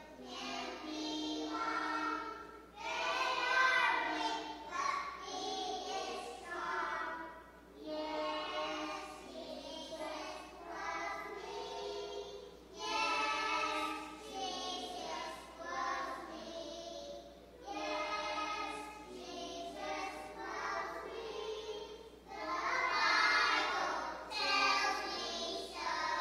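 A small group of preschool children singing a song together, in phrases with short breaths between them.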